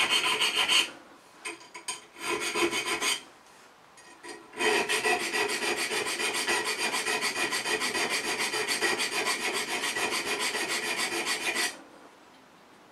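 A narrow file rasping back and forth across the spine of a steel knife blade held in a vise, cutting decorative notches. It goes in quick, even strokes, with a few short broken runs and pauses between about one and four seconds in, then a long steady run that stops shortly before the end.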